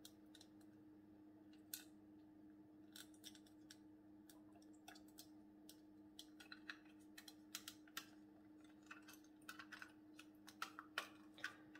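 Near silence: faint, scattered small clicks and taps of a model locomotive tender being handled and fitted back together, more frequent in the second half, over a faint steady hum.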